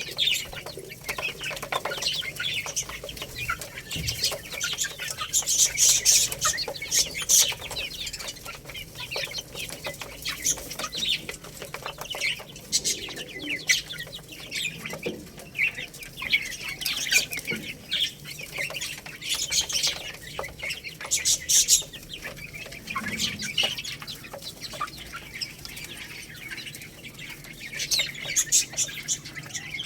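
Young chickens pecking and scratching while feeding on rice: irregular clusters of sharp clicks and rustling, with a couple of soft low clucks.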